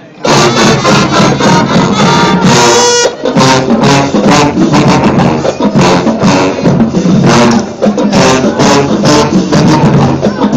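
University marching band playing: brass chords over a steady beat of drums and percussion, starting in after a brief break right at the beginning.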